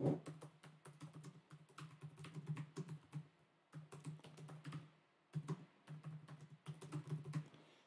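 Fast typing on a thin laptop's keyboard, a steady run of key clicks with a couple of short pauses. The laptop is resting on a folding laptop stand.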